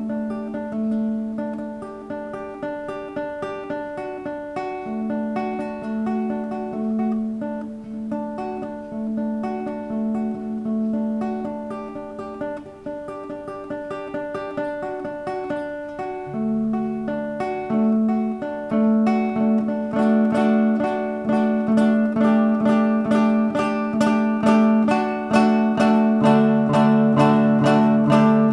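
Instrumental background music with quick repeated plucked-string notes, growing louder and busier over the second half, with a lower bass part coming in about halfway.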